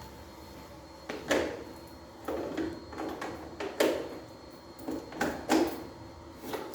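Plastic parts of a vacuum cleaner being handled and fitted: a series of about five separate clunks and short rattles, spread over several seconds.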